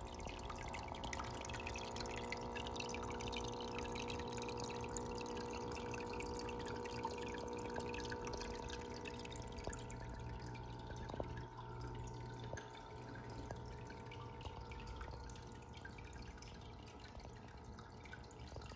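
Aquarium filter running, with water trickling and bubbling back into the tank in a fine continuous patter. A faint steady hum sits underneath.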